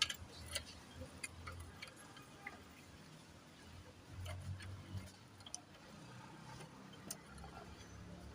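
Irregular light clicks and taps of hand tools and metal engine parts being handled, over a low steady hum.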